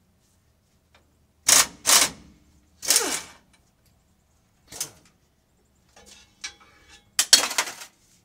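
Sharp metal clanks and rattles of hand tools against steel while working on a truck's front suspension: two quick clanks about one and a half seconds in, a longer rattle around three seconds, single clanks near five and six and a half seconds, and a loud clatter near the end.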